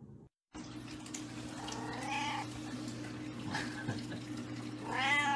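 A cat meowing twice, about two seconds in and again near the end, over a steady low hum.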